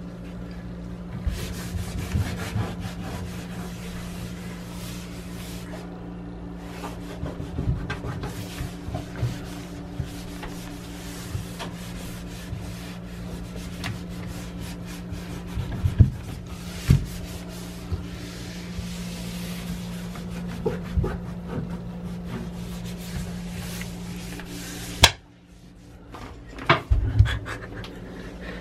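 Cloth wiping and rubbing across a bathtub surface, with scattered light knocks, over a steady low hum that cuts off suddenly near the end.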